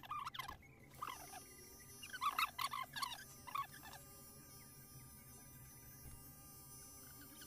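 Short, high-pitched vocal squeaks from a person in a few quick bursts over the first four seconds, then only a faint steady hum.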